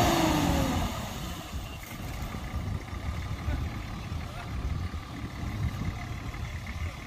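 A vehicle horn tone dies away in the first second, then a low, uneven rumble of off-road vehicles.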